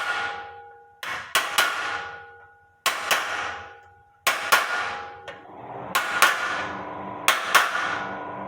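Hammer blows on a steel punch crimping the seam of a sheet-metal chimney collar held on a round pipe. The sharp metallic strikes come about every second or so, often in quick pairs, and each leaves the metal ringing.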